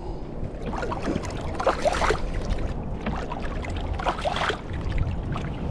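Kayak on the water: a steady low rumble with faint, scattered handling and water sounds.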